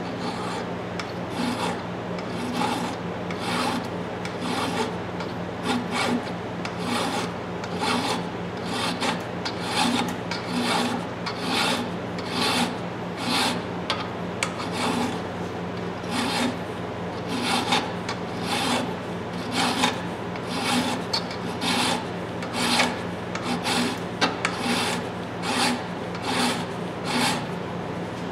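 Flat hand file rasping across the bent steel claw of a 22 oz Bostich hammer clamped in a vise, in a steady rhythm of push strokes, to clean up the damaged claw tip. A steady low hum runs underneath.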